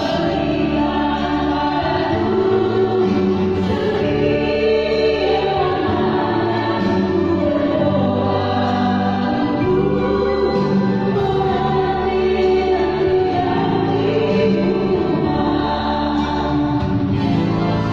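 A mixed choir singing a slow hymn-like piece in harmony, with held chords that change every second or two.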